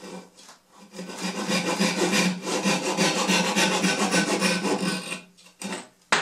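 Japanese pull saw cutting wood by hand, with quick, even strokes for about four seconds as part of a tenon is trimmed away; the sawing stops near the end. A sharp knock comes right at the close.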